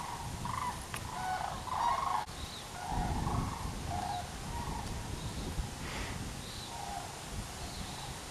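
Geese honking, many short calls overlapping at first and then thinning to scattered honks after about four seconds.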